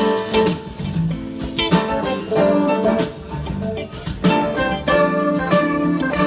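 Music led by a plucked, guitar-like string instrument, with frequent sharp percussive hits.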